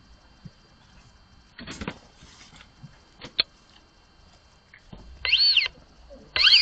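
Two short, high-pitched animal calls about a second apart near the end, each rising and then falling in pitch, after a brief rustle and a couple of sharp clicks.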